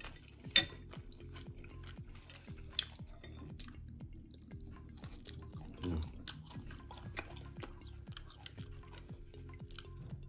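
Eating pork hock and rice noodles: chewing and wet mouth sounds with scattered sharp clicks, the loudest about half a second in, over low background music.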